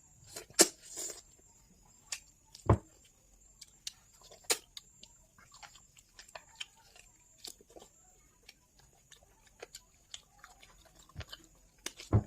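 A person eating goat meat curry: chewing and mouth smacks with scattered sharp clicks, and a few louder single knocks.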